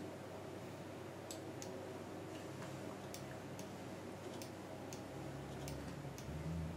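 Faint, irregular clicks of a computer mouse, about ten spread over several seconds, over a low steady hum.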